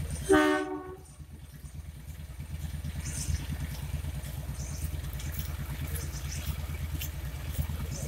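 A WAP-4 electric locomotive's ALCO-type horn gives one short honk about half a second in, several tones sounding together. A steady low rumble carries on underneath.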